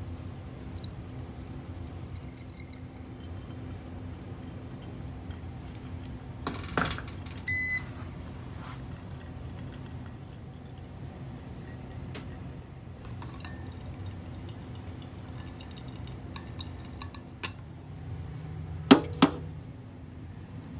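Pour-over coffee trickling through a paper filter into a glass carafe over a steady low hum, with a knock and a short electronic beep about seven seconds in. Near the end come two sharp clinks of glass as the carafe is handled.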